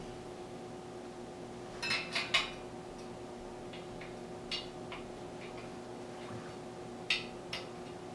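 Small metallic clicks and ticks of a spoke wrench and bicycle spokes as spokes are tightened to true the rim: a quick run of three about two seconds in, then scattered single clicks, over a steady faint hum.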